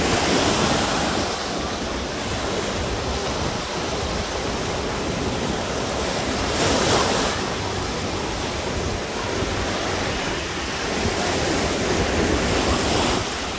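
Small waves breaking and washing up a sandy shore in a steady rush, with a louder surge about halfway through. Wind buffets the microphone underneath.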